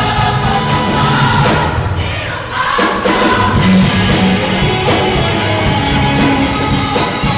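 Background music with singing voices; the music dips briefly and changes about two and a half seconds in.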